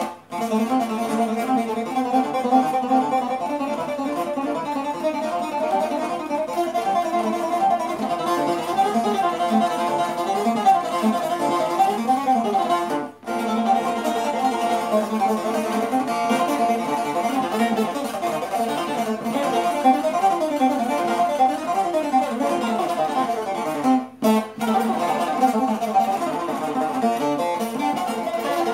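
Bağlama (long-necked Turkish saz) picked solo, playing a fast, continuous melody in makam Mahur with two brief breaks, about 13 and 24 seconds in.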